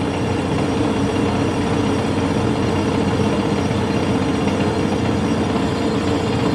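Metal lathe running at low speed with a steady hum and a constant tone, while a 9/16-inch reamer is run into the bore of a cast flywheel.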